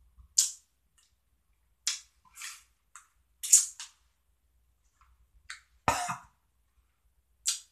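A man's short, sharp breaths and hisses through the mouth, about nine of them, with a louder cough-like grunt about six seconds in: a reaction to the sourness of a lime Sour Patch Kids candy.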